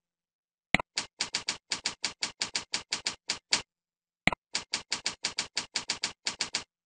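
Computer keyboard typing: two quick runs of keystrokes, about six to seven a second, with a short pause between them.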